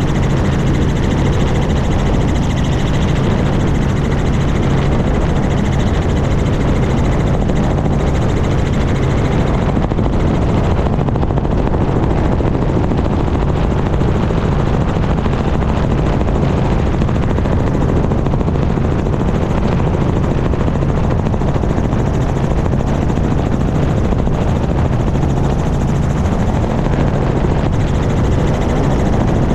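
Small helicopter in flight, heard from a camera mounted outside the cabin: a steady, loud rotor and engine noise with a constant low hum.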